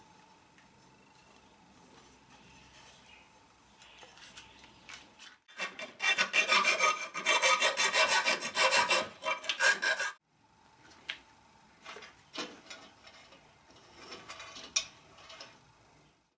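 A drill bit grating and chattering through steel plate, a harsh rasp for about four and a half seconds in the middle, as it is dragged sideways to join a row of drilled holes into a curved slot. Quieter scraping comes before it, and scattered knocks and clicks follow.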